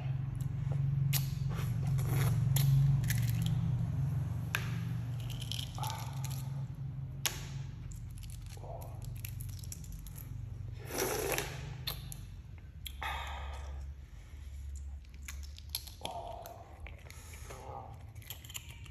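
Someone eating close to the microphone: biting and chewing with short crunches and clicks over a steady low hum.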